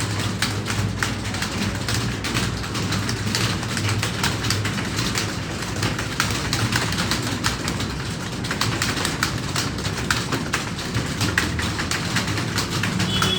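Many computer keyboards being typed on at once: a dense, continuous, irregular clatter of key clicks from a room full of typists taking a timed typing test, over a steady low hum.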